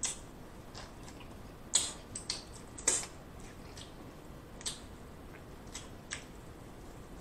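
Close-miked biting and chewing of buttered corn on the cob: an irregular run of sharp mouth clicks and crunches, the loudest a little under two and three seconds in.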